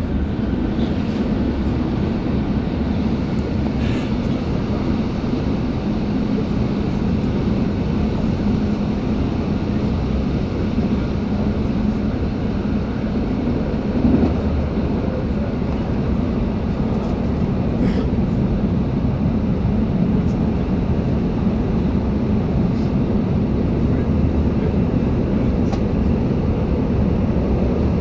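MI09 RER A electric train running between stations: a steady rumble and hum from the wheels and running gear, with one brief louder bump about halfway through.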